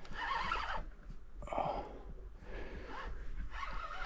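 A man's breathing, three or four short audible breaths about a second apart.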